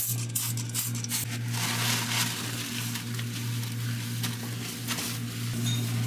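Cleaner sprayed in a few quick squirts, then a paper towel wiping across a glass fridge shelf, over a steady low hum.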